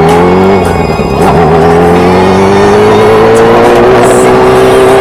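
Yamaha R6's inline-four engine revving hard under acceleration: its pitch climbs, drops briefly about a second in as it shifts up, then holds at high revs and keeps creeping higher.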